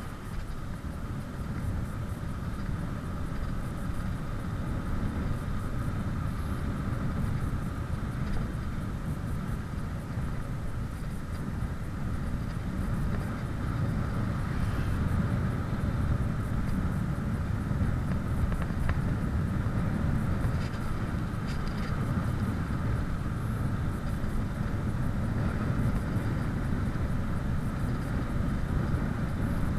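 Wind rushing over the microphone and tyre noise of a bicycle speeding downhill, rising over the first few seconds and then holding steady.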